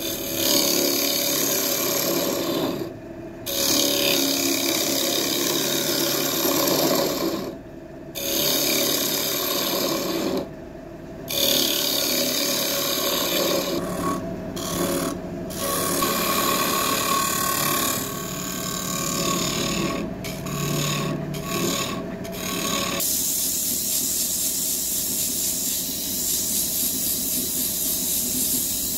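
Woodworking power tool working wood, in short clips cut together with brief breaks between them; near the end it gives way to a thinner, hissing sound.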